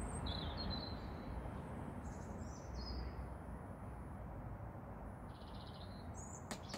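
Small birds chirping, a few short high calls scattered over a steady low background hum of outdoor noise, with a faint click near the end.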